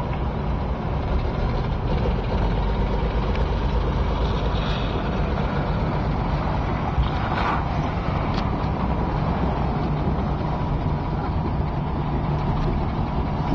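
Bucket truck's engine idling steadily.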